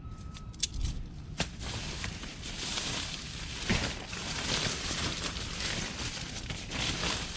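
Rustling of an Outdoor Research Alpine AscentShell bivy sack's shell fabric as it is handled and gathered up, with a couple of light clicks in the first second and a half.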